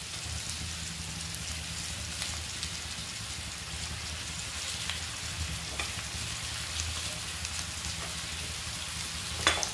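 Sliced bitter gourd and onions sizzling in hot oil in a kadhai over a high gas flame: a steady frying hiss with a low hum underneath. There are a few faint clicks, and a sharper knock near the end.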